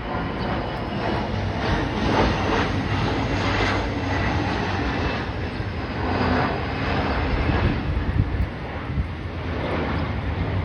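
Jet airliner passing low overhead on its approach to land, its engines sounding loud and steady with a faint high whine above the noise.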